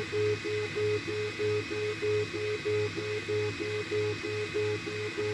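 Snapmaker A350T 3D printer's stepper motors whining through a rhythmic back-and-forth pattern of moves, about two cycles a second, over a steady high hum.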